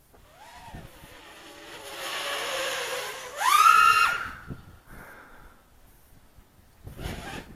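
Quadcopter drone's motors and propellers whining overhead. The pitch rises and falls with the throttle, with a loud climb in pitch about halfway through that holds briefly and then drops away.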